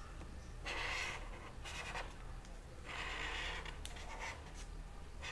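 Marker pen stroking across paper as a line is traced: several soft scratchy strokes, each about half a second to a second long.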